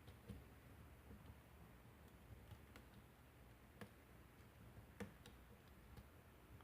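Faint, irregular clicks of a lock pick working the pins inside a Kwikset-keyway pin-tumbler lock cylinder, a few light ticks spread out over several seconds.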